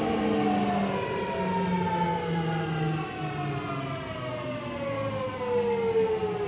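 Hitachi GTO-thyristor VVVF inverter and traction motors of a Seibu 6000 series train whining as the train slows, several tones gliding steadily down in pitch together over the running noise, heard inside the passenger car.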